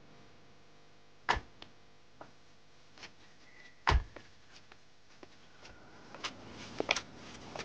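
Two car doors shut, one about a second in and a heavier one about four seconds in, followed by a few fainter clicks and footsteps on the ground near the end.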